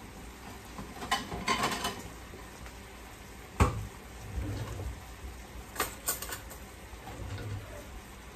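A dinner plate and fork being fetched and handled, with clinks a second or two in, a sharp knock midway (the loudest sound) and more clinks later, over the low steady simmer of steaks in teriyaki sauce in a pan.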